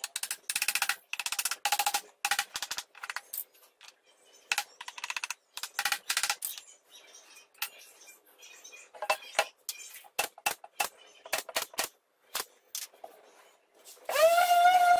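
Irregular sharp knocks of wood against wood and the metal bench, in quick clusters with a slight ringing. About a second before the end an electric orbital sheet sander switches on, its motor rising briefly to a steady whine.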